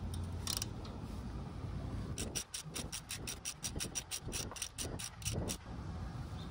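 Socket ratchet wrench clicking rapidly as its handle is swung back and forth to tighten a bolt, about seven clicks a second. The clicking starts about two seconds in and stops shortly before the end.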